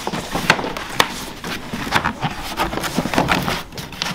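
A hard plastic carrying case and a cardboard box being handled and set down on a wire-shelf cart, giving a string of irregular knocks and clicks.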